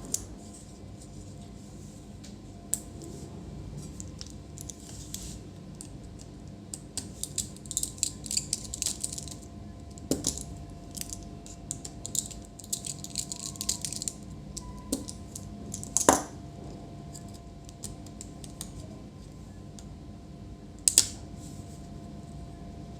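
Small laptop hinge parts and tools being handled on a bench: light clicks and scratchy scraping, with two sharper clicks, one about two-thirds of the way through and one near the end.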